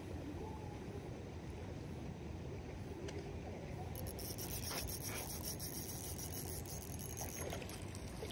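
Spinning reel being cranked to reel in a hooked trout, over a steady low rumble, with a few light water splashes from the fish near the end.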